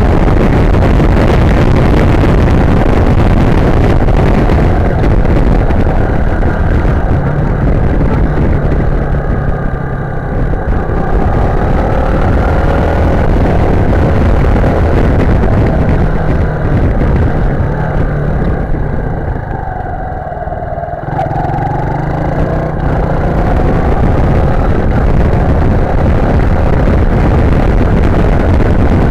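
Sym Wolf 150's single-cylinder four-stroke engine running while the motorcycle is ridden, over heavy rushing wind noise. The engine note falls off as the throttle is eased about ten seconds in and again around twenty seconds in, then climbs again as it pulls away.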